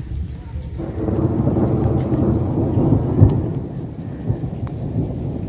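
Thunder rumbling: it swells about a second in, peaks near three seconds and fades away, with rain falling throughout.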